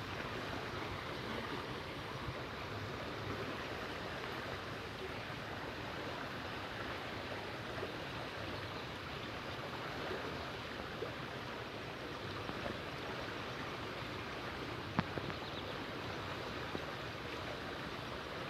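Steady rushing of flowing river water, with a single sharp click about fifteen seconds in.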